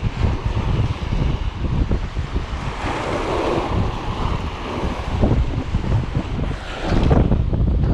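Strong wind buffeting the microphone with a low, gusting rumble, over sea waves washing. A surge of hiss swells about three seconds in and fades, and the wind picks up again near the end.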